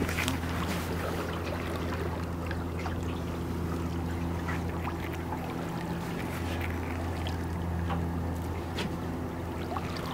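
Boat motor idling steadily, a low even hum, with light splashing of water throughout.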